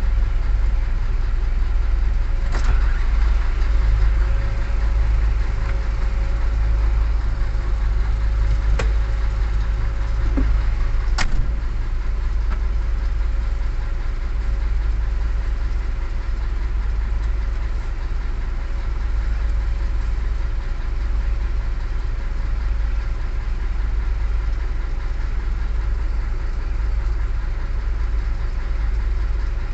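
Steady low engine rumble heard from inside a car riding a river cable ferry, with a faint steady hum over it. Three short clicks stand out about 2.5, 9 and 11 seconds in.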